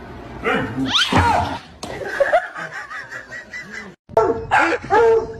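A person laughing in quick repeated bursts. After a sudden cut, a dog barks a few times near the end.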